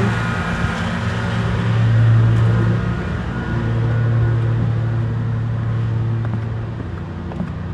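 Mower engine running with a steady drone that swells around two seconds in and again from about three and a half seconds, with wind rumbling on the microphone.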